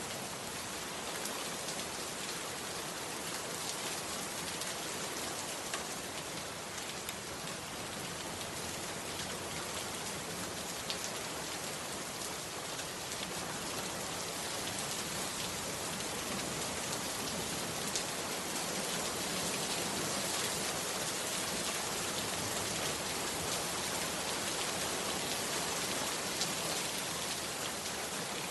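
Heavy rain falling steadily, with a few sharper drop ticks standing out now and then; it grows a little louder about halfway through.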